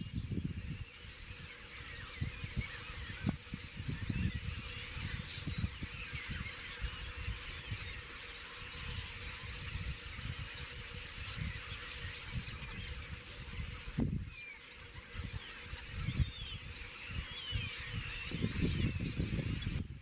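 Flock of common starlings chattering all at once: many overlapping whistles, squeaks and clicks, with wind gusting on the microphone.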